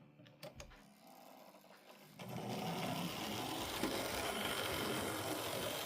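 A small machine running steadily with a whirr, starting about two seconds in after a near-quiet start with a few faint clicks.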